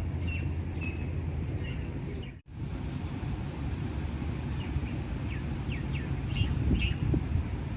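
Outdoor street ambience: a steady low rumble of traffic with short, high bird chirps over it, the chirps coming more often and louder in the second half. The sound cuts out for an instant about two and a half seconds in.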